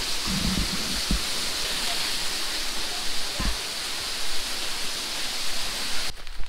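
Steady rushing hiss of falling water from a waterfall, with a few low thumps of the camera being handled about a second in and again midway. The hiss cuts off abruptly near the end.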